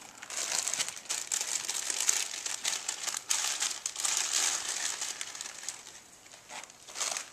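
Plastic pasta packaging crinkling as it is handled, a dense crackle for about five seconds that then fades, with a short last flurry near the end.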